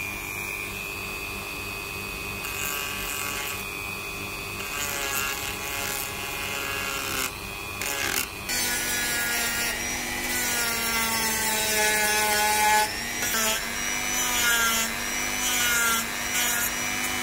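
Handheld rotary tool with a small sanding drum running against the curb-rashed lip of a wheel rim: a steady high motor whine with a gritty sanding rasp. The pitch sags and shifts as the drum is pressed into the rim, and the sound dips briefly a few times as it is lifted off.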